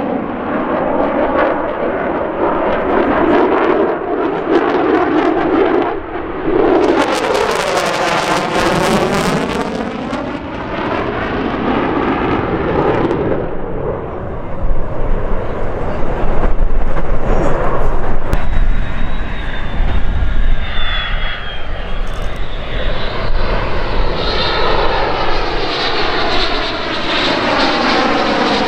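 F-16 fighter jet's engine running loud during a demonstration pass, with swooping, sweeping tones as the jet flies past and a deep rumble that peaks around the middle.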